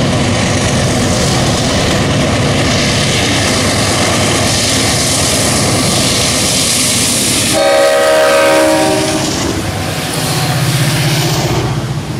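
CSX diesel locomotive hauling a freight train past at close range: a steady engine and wheel rumble on the rails. A train horn sounds once, a bit past the middle, a chord of tones that fades out over about a second and a half.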